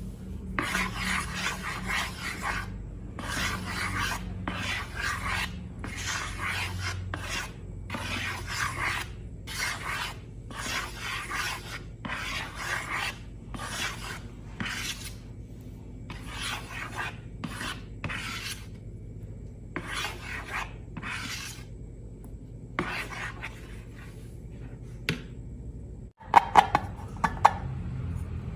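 Repeated rasping, scraping strokes, roughly one a second, which grow shorter and sparser in the second half. Near the end the sound breaks off and a few sharp clicks follow.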